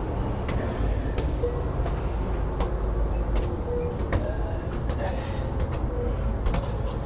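Steady low rumble of an Amtrak San Joaquin passenger train, with scattered light clicks and knocks and a few brief squeaks.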